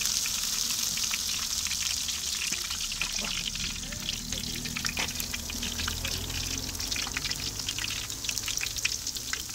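Hot oil in an iron karahi sizzling steadily with many small pops and crackles as batches of fried fish drain on a perforated skimmer held just above it; the fish has finished its second fry.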